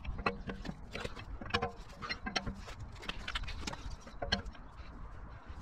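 Metal wheel brace working the wheel bolts of a car wheel: a run of irregular metallic clicks and knocks, some ringing briefly, as the brace is fitted and turned.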